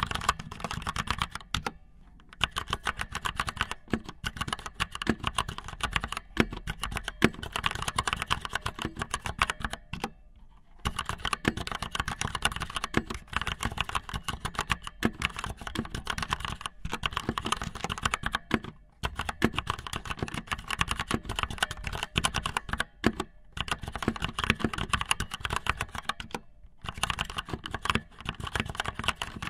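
Rapid, uneven clicking and tapping that runs almost without a break, pausing briefly about two seconds in, around ten seconds in, and near the end.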